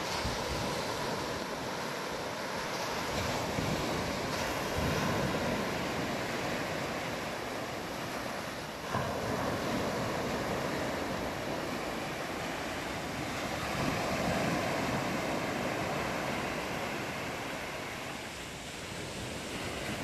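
Small sea waves breaking and washing up a sandy beach: a continuous rushing wash that swells and ebbs every few seconds, with some wind on the microphone.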